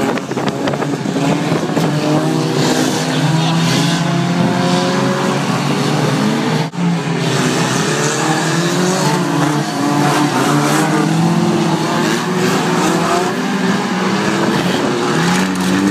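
Engines of several banger racing cars running hard as they lap the track, their notes rising and falling over one another, with a brief break in the sound about halfway through.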